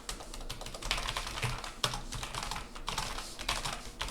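Typing on a Logitech MX Mechanical keyboard: a fast, uneven run of key clacks from its mechanical switches.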